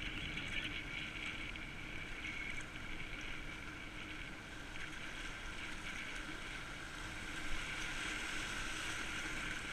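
Steady rush of fast, turbulent river water around a kayak running whitewater, with a faint knock about seven and a half seconds in.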